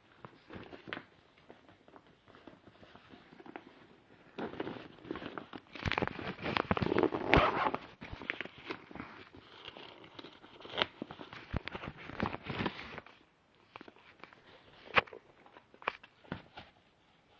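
Boot-box packaging being handled and opened: irregular rustling and crackling with scattered clicks and knocks, loudest and busiest about six to eight seconds in, then a few single sharp clicks near the end.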